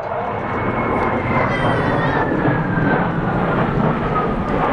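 Sukhoi Su-27P's twin AL-31F turbofan jet engines heard as a loud steady rumble, with a whine that falls slowly in pitch as the fighter passes.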